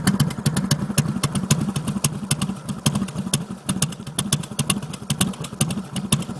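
Harley-Davidson V-twin motorcycle engine idling, its exhaust pulses coming in a quick, slightly uneven rhythm.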